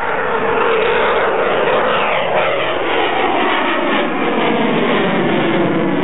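Eurofighter Typhoon's twin EJ200 turbofan engines running loud at high power as the jet pulls up into a vertical climb. The pitch slides downward over the first couple of seconds, then settles into a steady roar.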